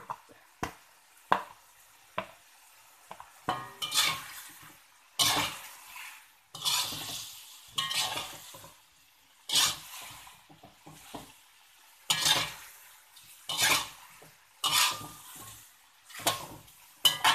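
A metal spatula scraping and tossing chicken feet around a wok. A few sharp taps come first, then irregular scraping strokes about once a second.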